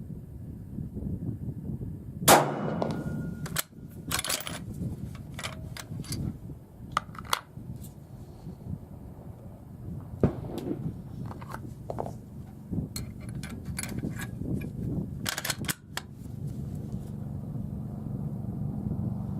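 Suppressed rifle shots from a Ruger Precision Rifle in 6.5 Creedmoor firing subsonic rounds through a Griffin Armaments Optimus suppressor. The loudest is a sharp report with a short ringing tail about two seconds in, then a second crack around ten seconds in, with scattered clicks and knocks between.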